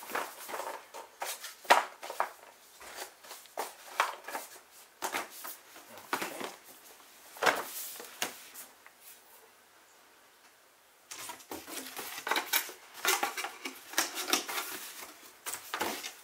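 Cardboard product boxes and packaging being handled, moved and set down on a carpeted floor: irregular knocks, taps and rustles, with a quiet spell of about two seconds in the middle.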